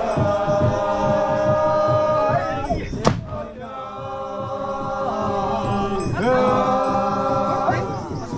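A group of Konyak men chanting together in long held notes, in phrases of a few seconds that slide in pitch as they end. A single sharp bang cuts in about three seconds in.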